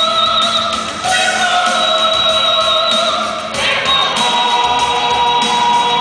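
A woman singing into a microphone over amplified backing music, holding long notes that change pitch about a second in and again a little past the middle.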